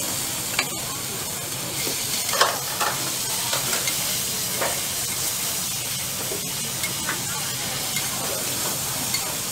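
Bok choy and carrots sizzling on a hot flat-top griddle, a steady hiss, with the metal spatula clacking and scraping on the steel plate every second or two as the vegetables are tossed.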